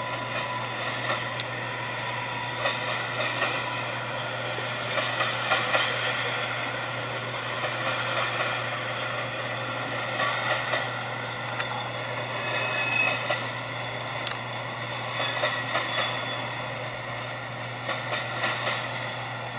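Freight cars of a passing train rolling on the rails: a steady running noise with light clicks, and a few brief high wheel squeals past the middle.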